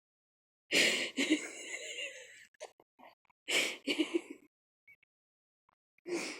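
A woman's quiet, stifled giggling in a few breathy bursts with pauses between.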